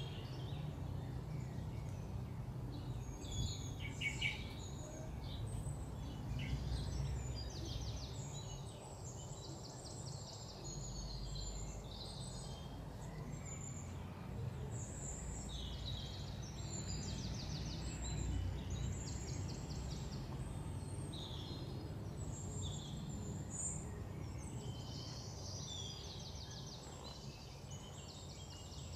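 Small birds chirping with short, rapid trills again and again, over a steady low background rumble.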